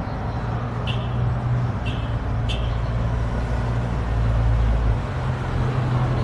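Street traffic: a motor vehicle's engine running close by, a steady low rumble that eases off about five seconds in. Three short high chirps come in the first few seconds.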